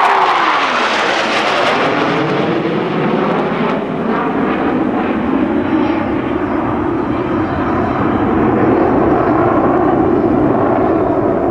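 Four F/A-18 Hornet jets, each with twin General Electric F404 turbofans, flying past overhead in formation with loud jet noise. A whine drops in pitch just after the start as they pass, then a steady loud jet roar follows as they fly away.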